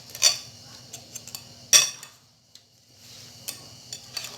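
Utensils clinking and knocking against a baking pan and dishes as the freshly baked bread is served. Two knocks stand out, one right at the start and a louder one just under two seconds in, among lighter clicks.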